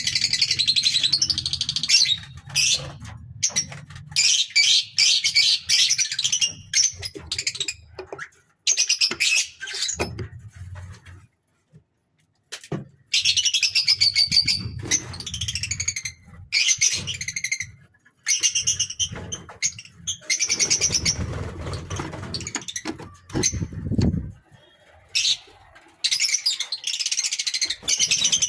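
A colony of lovebirds chattering: dense bursts of high, rapid chirps that start and stop every second or two, with a low rumble underneath at times.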